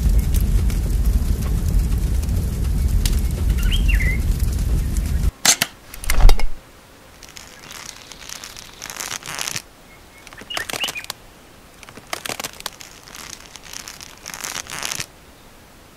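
Sound effects: a deep rumbling whoosh that cuts off suddenly about five seconds in, a heavy thump, then short scattered bursts of crackling and rustling. A bird chirps twice.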